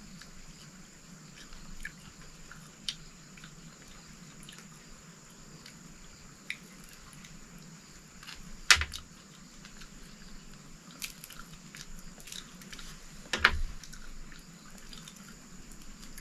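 A person eating with his fingers: faint chewing and small clicks of picking at food. Two sharp knocks stand out, the louder about halfway through and another some four seconds later.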